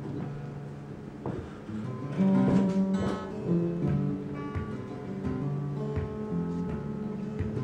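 Acoustic guitar playing a picked chord accompaniment, its notes ringing on between plucks, heard through a partly blocked microphone.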